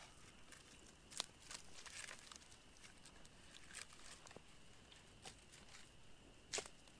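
Small wood campfire crackling faintly, with scattered sharp pops and snaps, the loudest near the end.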